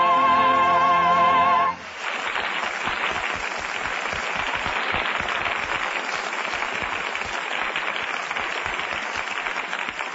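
A song ends on a sung note held with vibrato over the orchestra, cutting off about two seconds in; then an audience applauds steadily, easing off near the end.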